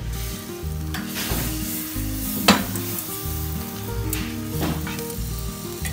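Butter sizzling as it melts in a hot pan, with tongs scraping and clicking against the pan as they push the pieces around; the sharpest click comes about two and a half seconds in. Background music plays underneath.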